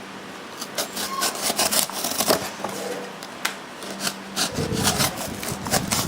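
Sanrenmu WA741-A1 multi-tool's knife blade sawing and slicing through a cardboard box: an irregular run of scraping, rasping strokes.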